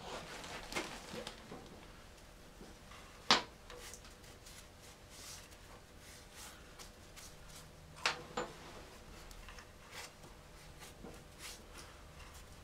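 Quiet hand-work on a motorcycle final-drive hub: a rag rubbing and wiping around the output flange, with a few sharp clicks of metal being handled, the loudest about three seconds in and two close together about eight seconds in.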